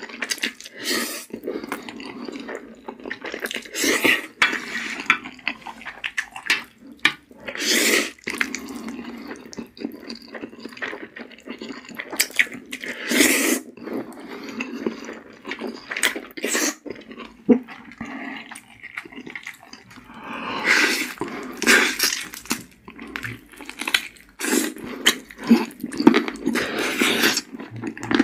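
Wet slurping of black bean noodles (jjajangmyeon), in irregular loud sucks about a second long, with quieter chewing between them.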